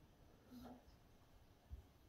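Near silence: room tone, with a faint brief sound about half a second in and a soft low thud near the end.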